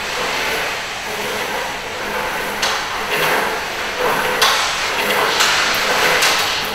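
Chain of heavy metal coil springs scraping and knocking as it shifts, over a steady hiss; from about two and a half seconds in come several sharp knocks and scrapes.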